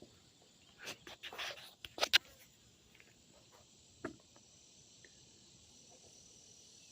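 Insects chirring steadily in the background, a high even hum, broken by a few short rustling knocks about one to two seconds in, the loudest near two seconds, and one more about four seconds in.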